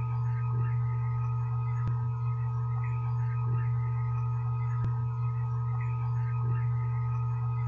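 Steady low hum with several higher ringing tones held over it, carrying faint fluttering sounds and a few soft clicks: an EVP recording offered as a female voice saying "please call mother".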